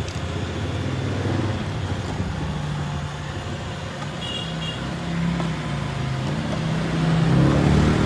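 iRobot Roomba 671 robot vacuum running across a tile floor: the steady hum of its motors and brushes, with a brief high tone about four seconds in.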